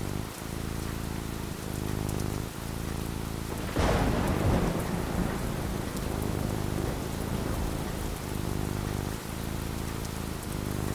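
Steady rain falling, with a sudden thunderclap about four seconds in that rumbles and fades over the next couple of seconds.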